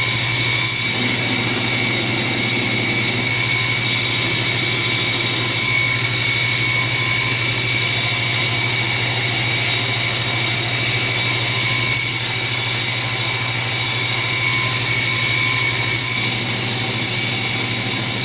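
Steady drone of shop machinery running: a low hum with a high steady whine over a hiss, unchanging throughout.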